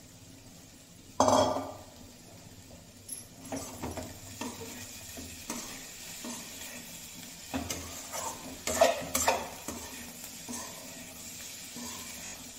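Metal spatula stirring and scraping potato-and-cauliflower bhujia in a metal kadhai, with irregular clinks and scrapes against the pan over a faint sizzle. One loud clank of metal on metal about a second in, as a steel plate knocks the pan while coriander leaves are tipped in.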